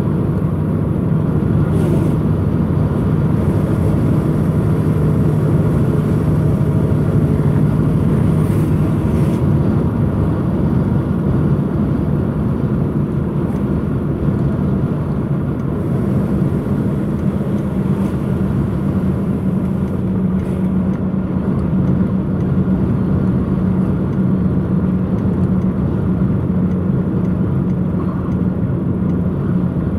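Steady engine drone and road noise inside a moving vehicle. The engine hum steps up in pitch about halfway through.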